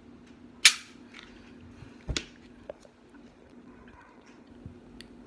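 Glock 17 Gen4 pistol dry-fired: a single sharp click of the trigger releasing the striker about half a second in, done to make the emptied pistol safe to take apart. A duller knock of the gun being handled follows about two seconds in, then a couple of faint ticks.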